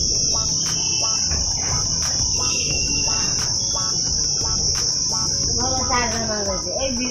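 Busy market lane ambience: a steady high-pitched whine runs throughout over a low rumble of crowd and street noise, with people's voices rising near the end.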